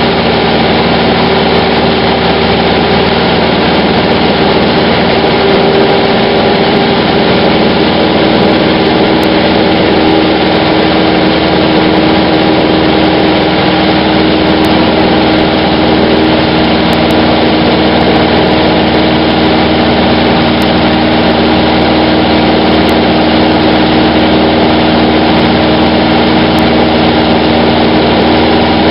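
Cessna 150's four-cylinder Continental O-200 engine and propeller in steady cruise, heard from inside the cockpit as a loud, even drone with airflow noise.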